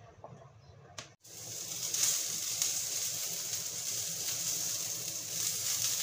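Chopped onion, garlic and ginger sizzling as they sauté in a frying pan while being stirred with a silicone spatula. The steady sizzle starts abruptly about a second in, after a moment of quiet.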